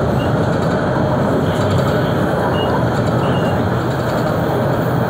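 Steady running noise of a new MBTA Orange Line subway car, heard from inside the front cab: a continuous low rumble of the train rolling along the track.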